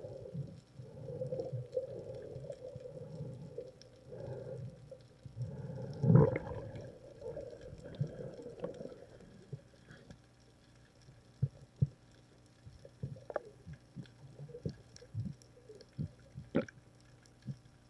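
Muffled water movement picked up by a camera underwater, in low pulses about once a second, with a louder surge about six seconds in. In the second half this gives way to scattered sharp clicks and knocks.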